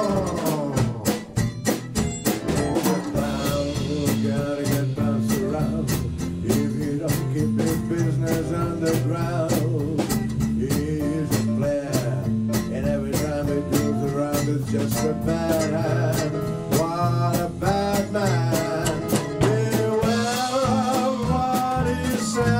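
Small swing jazz band playing live: a steady beat, a walking bass line and electric keyboard, with a wavering melody line on top.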